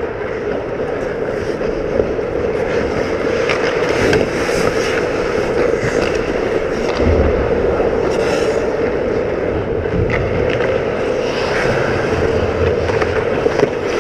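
Ice hockey skates carving and scraping on the ice close to the net, with a few sharp clacks, over a steady background hum.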